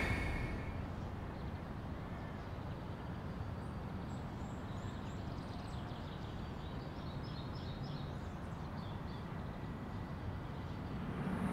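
Steady outdoor background noise, with faint high bird chirps in the middle stretch.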